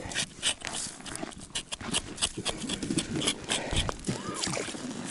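Repeated rough scraping strokes as frozen slime is scraped off a burbot's skin. In the second half there is a wavering pitched sound that rises and falls.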